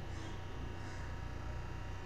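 Steady low electrical hum with faint hiss, with two brief soft hisses near the start and about a second in.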